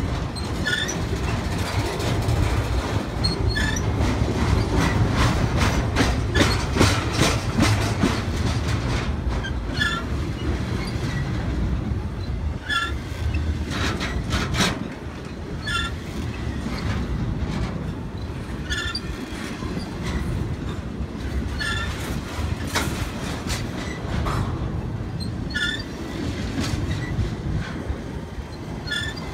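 BNSF intermodal freight train's cars rolling past close by: a steady rumble with wheels clacking over the rail joints. Short high-pitched wheel squeaks recur about every three seconds, and the rumble eases a little about halfway through.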